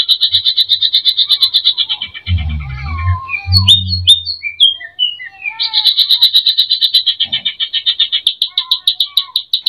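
Cucak ijo (green leafbird) singing a fast, rattling trill of rapid pulses. About two seconds in, a few seconds of varied whistled and chirped phrases break in, with a couple of sharp clicks. The rapid trill then resumes.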